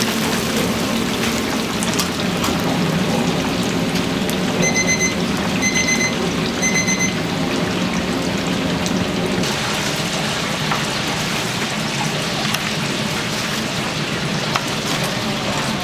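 Deep-frying oil sizzling steadily. An electronic timer beeps three times in the middle, and a low hum stops about nine seconds in.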